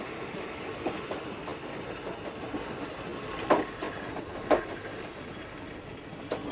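Passenger train coaches rolling past on the track: a steady rumble with a few sharp clanks, the loudest two about a second apart near the middle.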